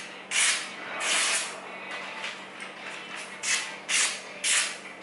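Freshly sharpened kitchen knife slicing through a sheet of newspaper: about five short, crisp hissing cuts. The clean cuts are a paper test of the edge's sharpness.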